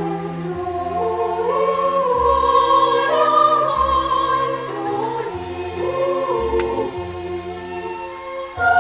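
Background music: a slow choral or sung piece with long held notes over a sustained bass.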